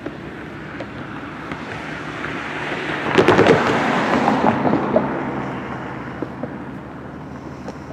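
Low steady rumble of a slow-moving diesel freight train's locomotives. About two seconds in, a swell of rushing noise builds, with a quick cluster of sharp clicks about three seconds in, then dies away again.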